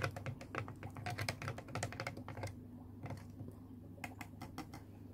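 Plastic aqua leash stirring water in a small plastic Sea-Monkeys tank, giving quick, irregular light clicks and taps as it knocks against the tank walls, with a short pause about halfway. A faint low hum runs underneath.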